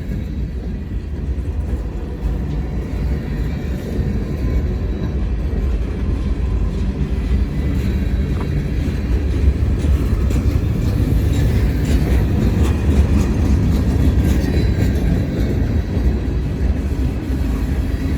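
Freight train rolling past on the rails: a steady low rumble with faint clicks, growing somewhat louder over the first half.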